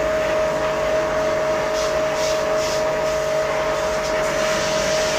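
Electric high-pressure jet washer running steadily, its motor giving a constant whine over a dense hiss of water spray, as used to jet-clean a window air conditioner; the hiss swells briefly a couple of times.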